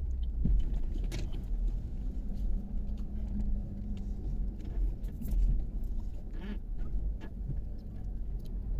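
Inside the cabin of a moving Chevrolet Cobalt sedan: a steady low engine and road rumble with scattered clicks and knocks.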